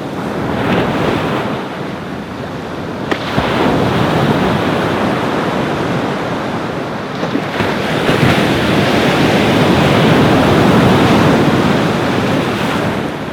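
Ocean surf breaking and washing up a beach, swelling and easing as waves come in, with a long, loud surge in the second half. Wind gusts over the microphone.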